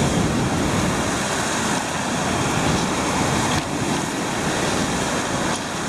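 Surf washing onto a pebble beach, a steady rush of waves.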